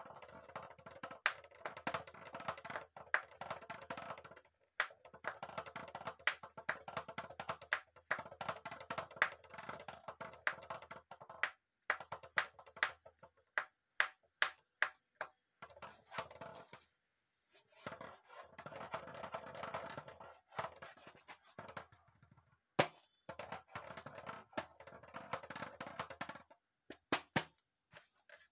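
Drumsticks beating a homemade drum in fast rolls of rapid strokes, broken by a few short pauses and stretches of single sharp hits, the drum ringing under the rolls.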